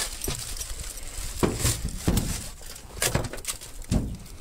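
Footsteps crunching through dry leaf litter, several irregular steps.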